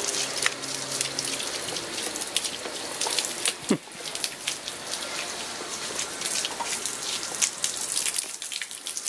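Water from a garden hose splashing onto stone patio paving: a steady spattering hiss dotted with small splash ticks.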